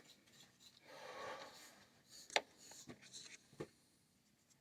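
Quiet handling noises of plumbing work: a soft rubbing about a second in, then one sharp click and a few lighter ticks.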